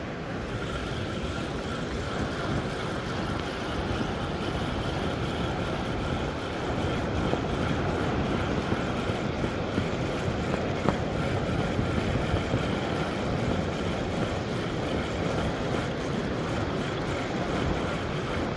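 Wind buffeting the microphone over the rush of breaking surf.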